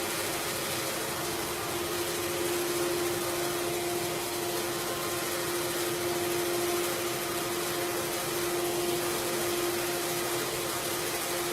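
CNC router for sign-making running with a steady, unchanging whine over a hiss.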